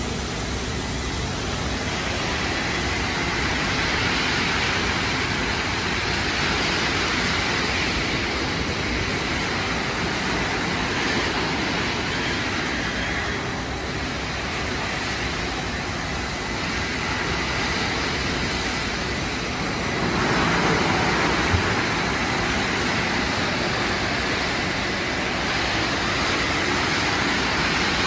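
Automated tunnel car wash equipment running: a steady rushing hiss that swells and eases in waves every several seconds.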